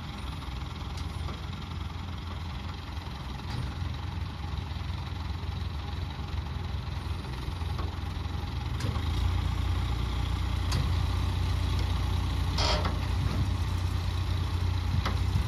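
Truck engine idling with a steady low drone that grows louder about nine seconds in, with a short rush of noise a few seconds later.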